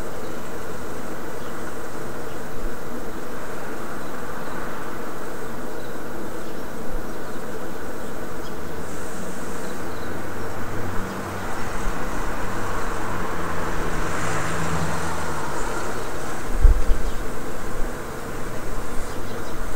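Steady buzzing hum of outdoor street ambience. Partway through, a low rumble, like a vehicle passing out of sight, rises and fades, and a single low thump follows near the end.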